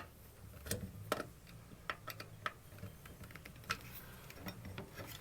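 Scattered light clicks and taps, about half a dozen irregular sharp ticks, from handling wire and small tools on the terminals of a 30 amp receptacle during wiring.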